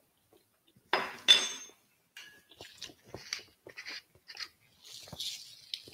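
A clatter of crockery about a second in, then a hand pepper grinder being twisted over a plate, giving a run of small, irregular grinding crackles.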